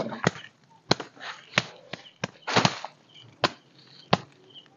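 A tent peg being hammered into the ground: about seven sharp knocks, roughly one every two-thirds of a second.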